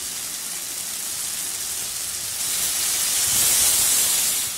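Vegetables frying in oil in a metal pan with a steady sizzle; about two and a half seconds in, tamarind water is poured in and the hiss grows louder as the liquid hits the hot pan, fading just before the end.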